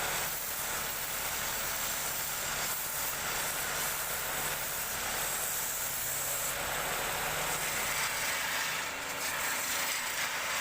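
Wood lathe running, with a steady hiss of a tool working the spinning wood.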